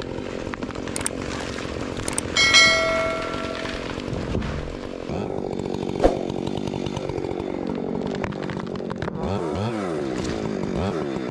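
Chainsaw running and cutting, its engine speed rising and falling, with revving sweeps near the end. A brief ringing note sounds about two and a half seconds in, along with a few sharp clicks.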